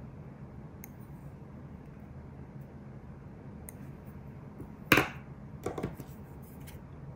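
A sharp click about five seconds in, then a few lighter clicks, as metal tweezers and a rhinestone chain are handled and set down. A low steady hum runs underneath.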